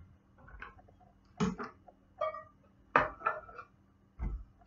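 Wooden chopping board and knife knocking against a pan as chopped onion is scraped off the board into it: three separate knocks, the loudest about three seconds in, the last a dull thud near the end.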